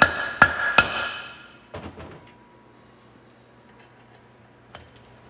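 Hammer striking a reverse-thread bolt extractor to drive it into a broken bolt in an LS cylinder head: three sharp metallic hits with ringing in the first second. A few light metallic clicks follow as a wrench goes on the extractor.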